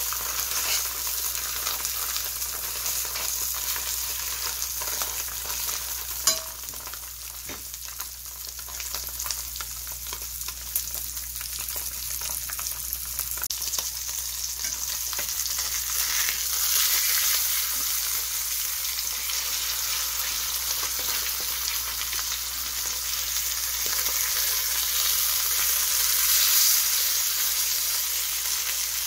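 Mackerel fillets frying in oil in a stainless-steel pan: a steady sizzle with fine crackling and spitting, a little louder in the second half. Metal tongs give a sharp click against the pan about six seconds in and again about eleven seconds in.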